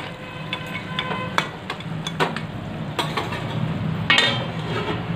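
Steel spatula stirring a simmering vegetable curry in an aluminium kadai, knocking against the pan about once a second with short metallic rings. Near the end a metal lid clanks onto the pan.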